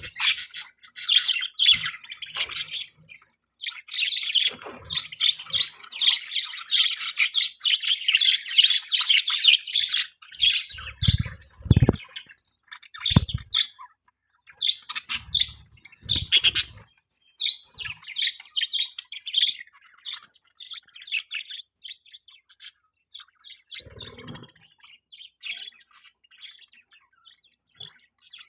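Budgerigars chattering: fast, dense chirping and warbling, thick at first and thinner and more scattered later on. A few short low thumps come through around the middle.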